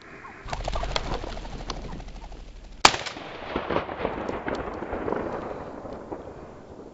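A single sharp shotgun shot about three seconds in, the loudest sound, preceded by a flurry of rustling and clicking and followed by rustling through dry brush.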